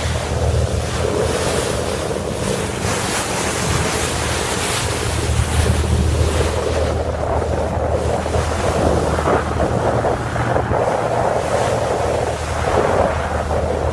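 Wind buffeting the microphone: a gusting rush of noise over a constant low hum.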